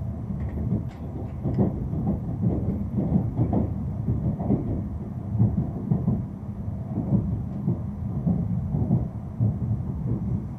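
A Tohoku Shinkansen bullet train heard from inside the passenger cabin: a steady low rumble with irregular knocks and rattles from the running gear as it rolls toward the station at reduced speed.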